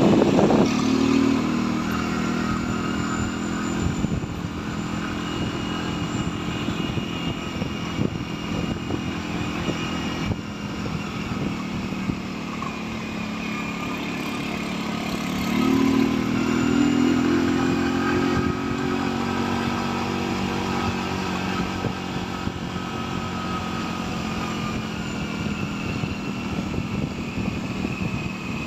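Motorcycle engine running while riding along a road, over a steady rushing noise. About sixteen seconds in the engine speeds up, its pitch rising, then settles back.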